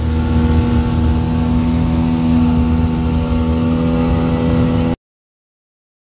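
Speedboat engine running steadily at speed, with rushing noise under it, cutting off abruptly near the end.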